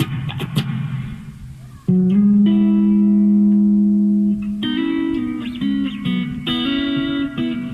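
RJ Broadcaster Deluxe electric guitar played on a clean tone. A few muted, scratchy strums come first, then a low note rings out for about two seconds, followed by several picked notes and chords.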